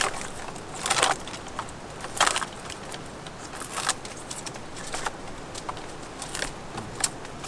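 Dry crackling and rustling of a coconut's stalk and the palm's fibres as the coconut is twisted round and round to break it off the tree, with irregular sharp cracks, the loudest about one and two seconds in.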